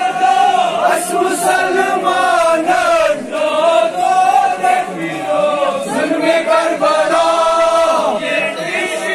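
Men's voices chanting a Kashmiri nauha, a Muharram mourning elegy, in long, held melodic lines.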